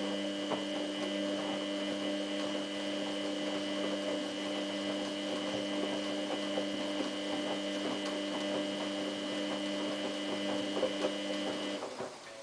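Samsung WF8804RPA washing machine giving off a steady hum of several tones, with faint crackling over it, which cuts off suddenly near the end.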